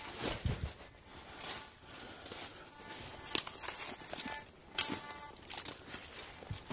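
Footsteps crunching through dry leaves and twigs. Past the middle, a metal detector gives a couple of short buzzing tones.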